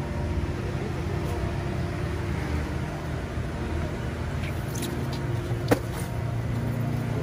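Steady low rumble of a motor vehicle running, with a single sharp knock about five and a half seconds in as cartons are loaded into the truck.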